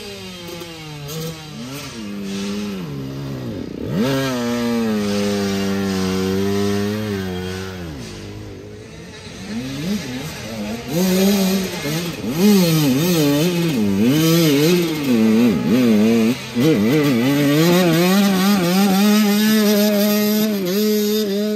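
Dirt bike engines revving hard and unevenly, their pitch surging up and down again and again as the throttle is worked, typical of bikes clawing for grip on a muddy hill climb. There is a sharp rise in revs about four seconds in, then quick repeated surges through the second half.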